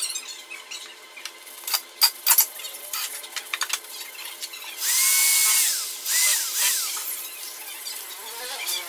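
A few sharp knocks of board being handled about two seconds in, then a corded electric drill runs for about a second, its motor spinning up, holding and winding down, followed by a second shorter run, driving screws into a sheet-board drawer box.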